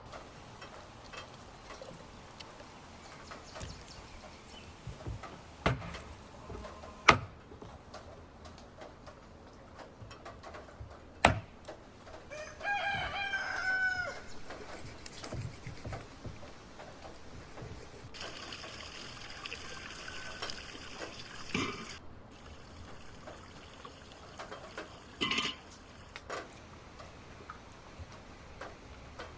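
A rooster crows once, a call of about two seconds near the middle, among several sharp knocks and clatters, two of which are louder than the crow.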